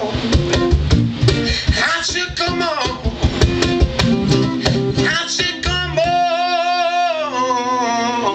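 Live guitar strumming with a singer's wordless vocal line; about six seconds in the strumming stops and the singer holds one long note with vibrato.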